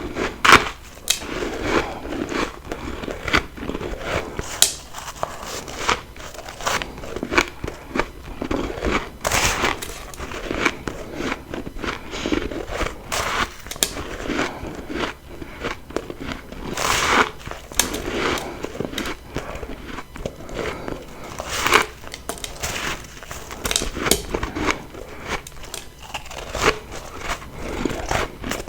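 Bites into refrozen freezer frost, a dense run of crisp crunching and crackling. Four bites stand out louder than the rest, spread through the stretch.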